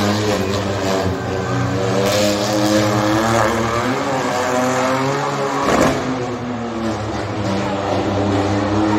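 A steady motor drone, its evenly pitched hum wavering slightly in pitch, over a noisy background, with a short, louder burst of noise about six seconds in.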